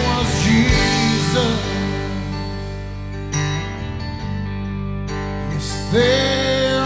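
Live worship band playing a slow song: acoustic guitar and band under a woman's lead singing. A held sung note at the start trails off into a short instrumental stretch, and the singing comes back in about six seconds in.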